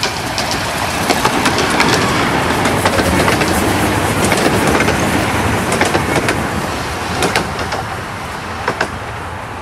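Small narrow-gauge steam train passing close by: the locomotive and its carriages rolling past with sharp wheel clicks over the rail joints. It swells over the first couple of seconds and eases off in the second half as the carriages go by.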